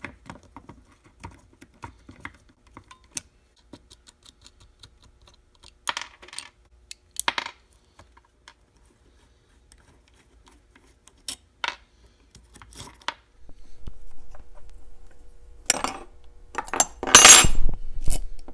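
Scattered light clicks and clinks of small metal parts as a Shimano 200GS rear derailleur is taken apart by hand, a hex key working the pulley bolts and the pulleys coming off. A louder spell of rattling and scraping comes near the end.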